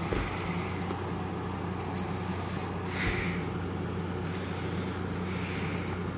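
Cardboard DVD box set being handled: a few soft rustles and rubs, about halfway through and again near the end, with a few light clicks, over a steady low hum.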